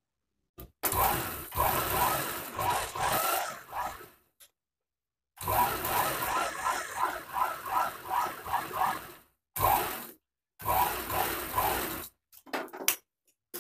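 Merritt sewing machine driven by an add-on electric motor, running in several bursts with pauses between, the longest a few seconds each, as a top stitch is sewn through denim along a zipper.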